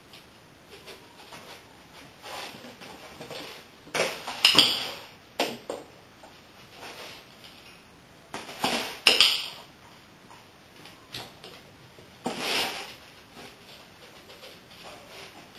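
Short sharp clicks and clatters in a few clusters, about four, nine and twelve seconds in, from clicker training with a small dog nosing and pushing a box across a tile floor.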